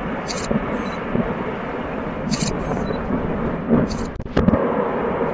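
Steady rumbling noise of a factory chimney demolition as the dust cloud billows, with indistinct voices of onlookers; a brief drop-out and then a sharp crack come about four seconds in.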